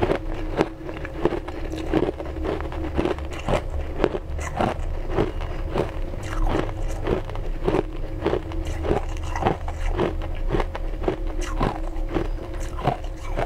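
Ice being crunched and chewed between the teeth: a run of sharp crunches about twice a second, over a faint steady hum.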